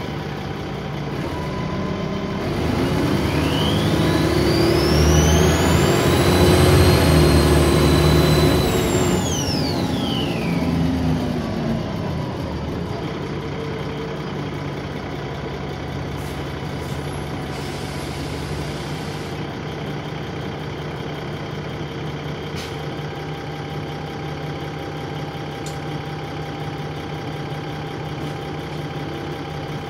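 Dennis Trident 2 double-decker bus engine heard from inside the bus, pulling away with a loud, high turbo whine that rises about three seconds in, holds, and falls away after about ten seconds. It then settles to a steady, quieter hum.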